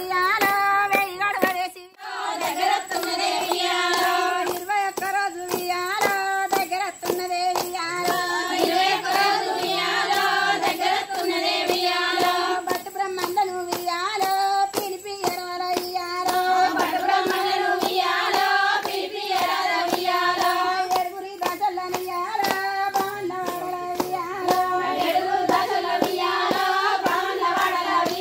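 A group of women singing a Bathukamma folk song together in chorus, clapping their hands in a steady rhythm.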